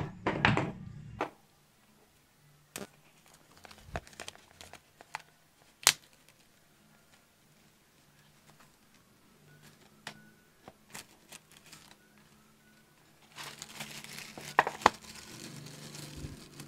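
Packaging being handled: crinkling and tearing, with scattered light taps and clicks in between. There is a short burst of crinkling at the start and a longer stretch near the end.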